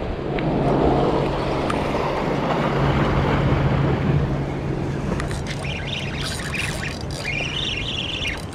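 Steady low drone of a motorboat engine over wind and water noise. From about five and a half seconds in, birds give repeated high calls over it.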